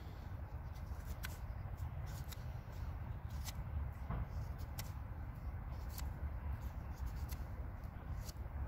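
Knife blade shaving bark off a split green-wood stick: a run of short, irregular scrapes and clicks as the edge is drawn along the wood, over a low steady rumble.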